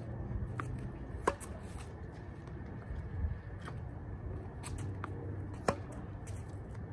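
Yonex Ezone tennis racket striking balls: two sharp pops about four seconds apart, with fainter knocks in between, over a steady low background noise.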